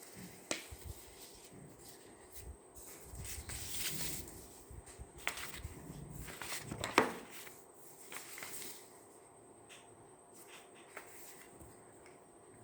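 Pen writing and paper rubbing on a desk in irregular strokes, with a sharp click about half a second in and a louder tap about seven seconds in. A steady high cricket trill runs underneath.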